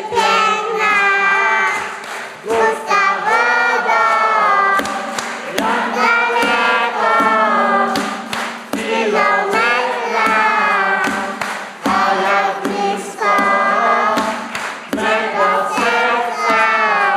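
A group of children singing a song together to musical accompaniment, with a steady beat of sharp strikes under the melody.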